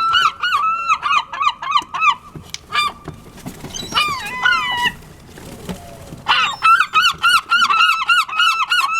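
Seagulls calling: a fast run of short yelping calls, about five a second, then a few longer falling calls, a short lull, and the fast yelping again from about six seconds in.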